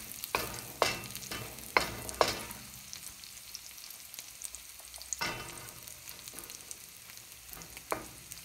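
Wooden spoon stirring sugar-coated fried yam pieces in a hot wok, knocking against the metal, over a faint sizzle of hot oil. The knocks come about twice a second at first, then only twice more, about five and eight seconds in.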